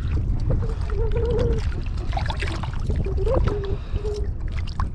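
A steady low rumble with water sounds, and a faint wavering voice twice.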